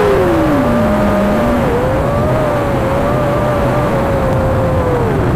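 FPV quadcopter motors whining over a steady rush of wind and prop noise, their pitch sliding up and down with throttle. One tone falls away in the first second and a half, while another holds near steady with brief dips, one shortly before the halfway point and one near the end.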